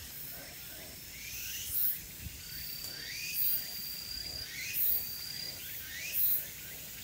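Outdoor woodland ambience: a wild creature, most likely a bird, repeating a short rising chirp about every second and a half, with a thin steady high tone in between.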